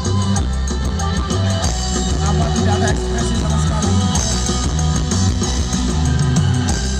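Music with drums and heavy bass played loud through a large outdoor sound-system speaker stack during a sound check.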